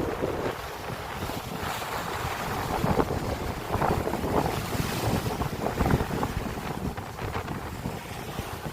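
Wind buffeting the microphone over the wash of sea waves, a steady gusty rush.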